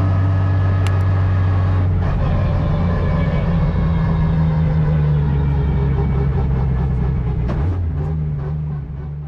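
Drift car's engine heard from inside the cockpit, running at a steady pitch that shifts about two seconds in and again near the end, then growing quieter.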